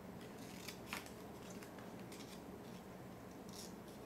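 Small red-handled craft scissors snipping through a folded paper flower: a few quiet cuts, the clearest about a second in.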